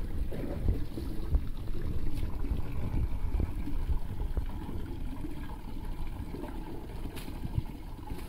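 Tap water running into a plastic tub, a steady splashing. Near the end water is poured from a mug over a wet dog's back.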